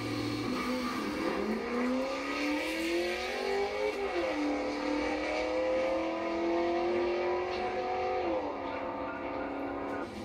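A drag-racing engine launching and accelerating hard. Its note climbs, drops at a gear change about four seconds in, climbs again and drops at another shift a little after eight seconds.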